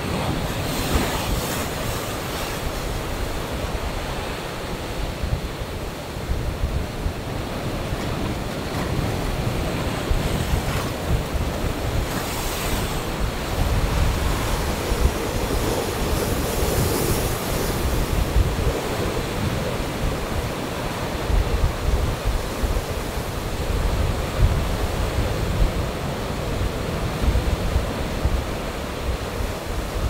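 Ocean surf breaking over black lava rock: a continuous rush of waves and foam with a low rumble, swelling into brighter, hissing crashes about a second in, and again about a third and just over halfway through.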